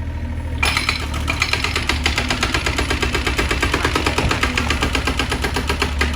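Excavator diesel engine running under load, joined under a second in by a rapid, regular hammering of many blows a second, typical of a hydraulic breaker pounding concrete.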